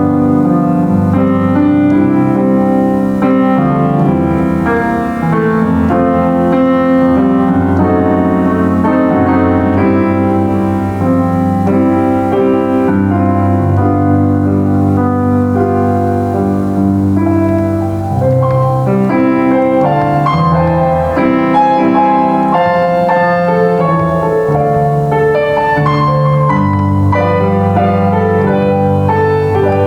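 Solo piano playing a slow hymn-style tune, with steady chords in the bass under a melody line.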